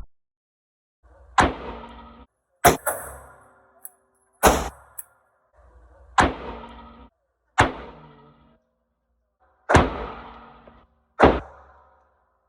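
Seven gunshots at uneven intervals, a second or two apart, each a sharp report with a short ringing tail.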